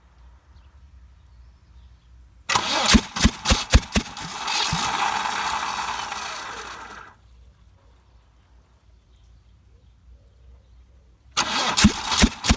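Volvo B230F four-cylinder petrol engine being cranked, coughing with a few irregular pops but not catching. It cranks on for a few seconds and stops, then a second attempt starts near the end with more coughs. The engine fails to start.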